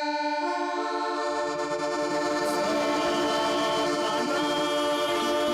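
Live cumbia band striking up an instrumental intro: a sustained chord with rapidly repeated notes starts abruptly, and a bass line joins about a second in.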